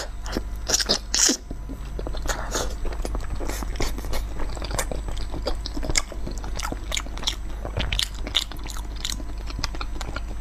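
Close-miked eating sounds: biting, tearing and chewing braised trotter skin and tendon, a dense run of sharp, irregular clicks.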